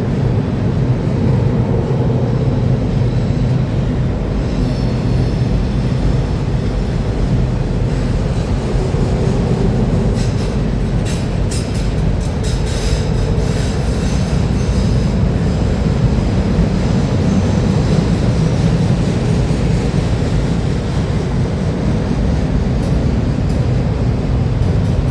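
Freight train rolling past: a steady heavy rumble of wheels on rail. A faint high wheel squeal comes in a few seconds in, and a run of sharp clicks sounds around the middle.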